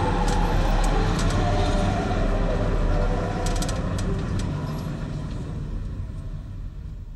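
Road noise inside a moving van's cab: a steady low engine and tyre rumble with a few light clicks and rattles. It fades out gradually over the last few seconds.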